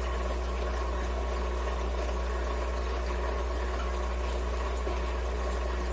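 Steady low hum with a faint hiss, unchanging throughout: the background noise of the recording.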